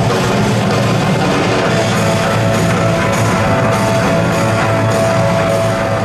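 Loud rock music with drums and guitar.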